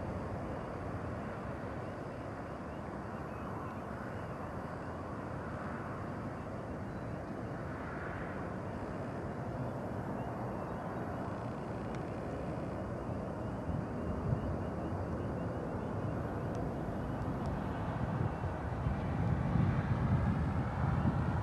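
Boeing 737-200's Pratt & Whitney JT8D turbofans at take-off power as the jet climbs away: a steady low jet rumble, which swells louder near the end.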